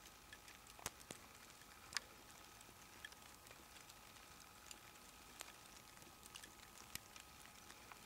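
Near silence: a faint outdoor hush with a few scattered light ticks.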